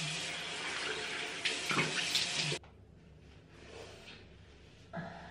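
Bathroom tap running into a sink while face wash is rinsed off, shut off abruptly about two and a half seconds in. Faint rubbing of a towel on the face follows.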